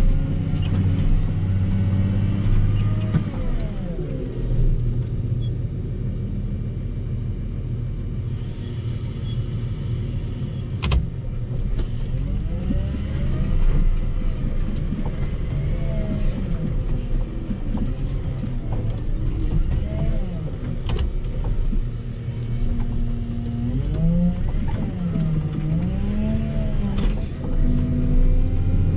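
Volvo L60H wheel loader's diesel engine working under load while pushing and lifting snow, its note rising and falling several times as it works, with a few sharp clunks from the machine.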